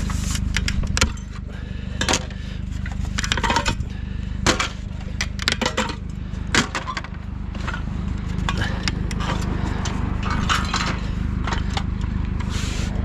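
Blades being snapped and cracked off discarded ceiling fans by hand: a run of irregular sharp cracks, knocks and clatters over a steady low hum.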